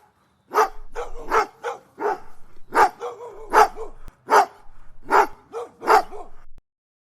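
A dog barking repeatedly, about two to three short barks a second, stopping abruptly near the end.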